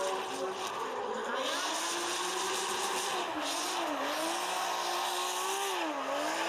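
Toyota GR Supra drift car sliding through a drift with its engine held at high revs and its rear tyres spinning in smoke. The engine note dips briefly and climbs again about four seconds in and once more near the end.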